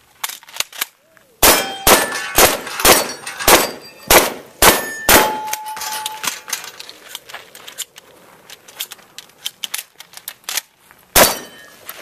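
Rapid shotgun fire, about eight shots roughly half a second apart starting about a second and a half in, with steel targets ringing when hit. Lighter clicks and rattles follow, then one more shot near the end.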